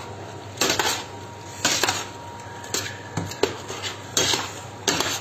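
A utensil knocking and scraping against the side of a stainless-steel pot while fried aubergines are stirred in: about eight short, irregular clinks.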